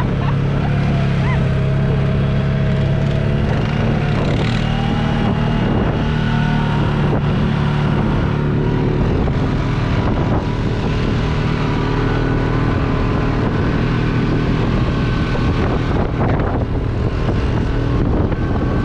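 A vehicle engine running steadily while under way, with a thin whine that slowly climbs in pitch over the first few seconds and then holds, and wind on the microphone.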